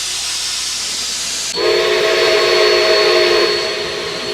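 Steady steam hiss from a steam locomotive, and about a second and a half in its whistle sounds one long blast of several notes together, held for about three seconds.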